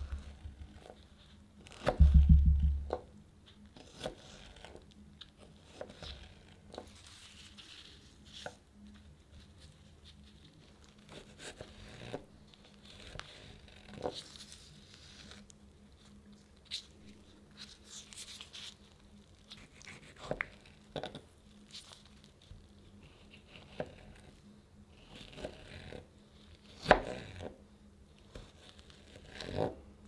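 A knife cutting fresh strawberries on a plastic cutting board: soft slicing through the fruit with scattered light taps of the blade on the board. A loud low thump comes about two seconds in, and a sharp click near the end.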